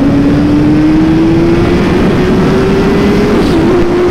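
Kawasaki Ninja H2's supercharged inline-four accelerating hard, its pitch climbing steadily, with a brief dip about three and a half seconds in, under heavy wind rush.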